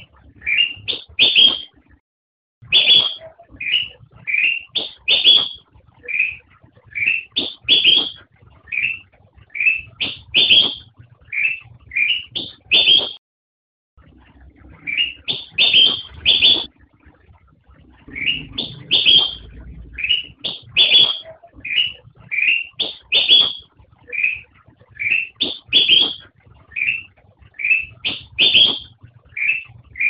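Kutilang emas, a black-crested bulbul (Pycnonotus melanicterus), singing a long run of short, bright whistled phrases of one to three quick notes, repeated about every half second. There is a brief break about two seconds in and another near the middle. A faint low hum runs under the song.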